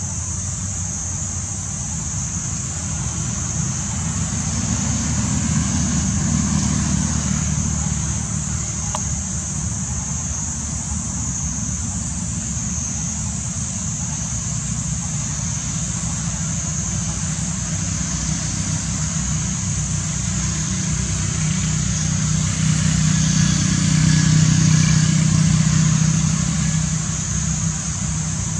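Steady low rumble of a motor vehicle engine that swells about five seconds in and again near the end, over a steady high hiss.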